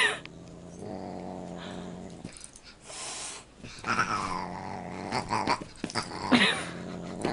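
Pets growling low, with falling cries about four seconds in and a sharper, louder cry about six seconds in.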